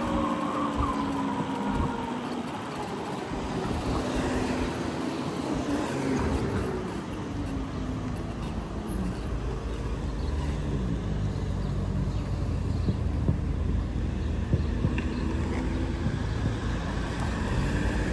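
Traffic noise heard from an electric motorcycle riding through city streets: road and wind noise with cars around. A whine drops in pitch about five to eight seconds in, and after that a steadier low rumble of nearby vehicles holds.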